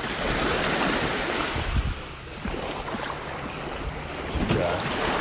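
Waves washing on the beach, with wind buffeting the microphone.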